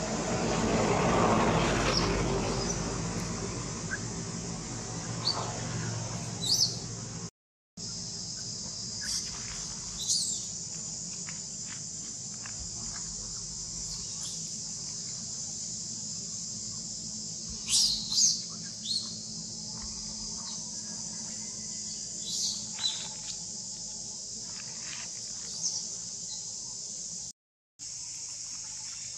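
Steady high drone of forest insects, with scattered short high chirps and squeaks and a broad swell of rushing noise in the first few seconds. The sound cuts out completely twice for a moment.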